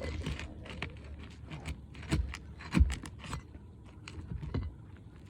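Scraping and clicking of hands and tools working loose brittle roof shingles, with two louder knocks about two and three seconds in.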